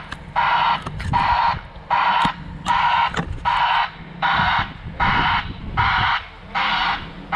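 Truck crane's reversing alarm beeping steadily, about three beeps every two seconds, over the low rumble of its diesel engine as it backs onto the mats.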